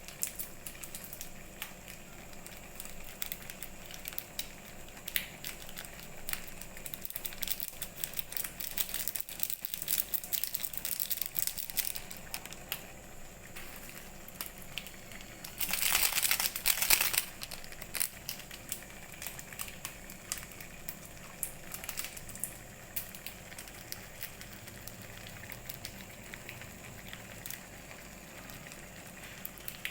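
Noodles being cooked and stirred in a kadhai: scattered clicks, scrapes and crackles, with one louder hiss lasting about a second and a half midway through.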